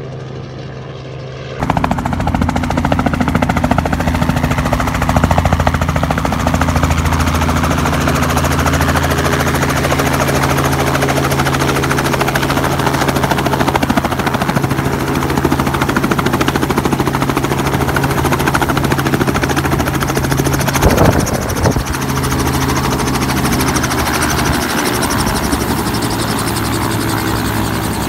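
Light helicopter running close by, hovering low and then on the ground with its rotor still turning: a steady rotor chop over the engine's drone. It gets much louder about a second and a half in. There is a brief burst of rushing noise about three-quarters of the way through.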